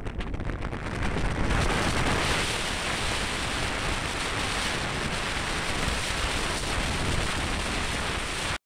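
Storm surf breaking and hissing on the beach in high winds, with wind gusts buffeting the microphone as a low rumble.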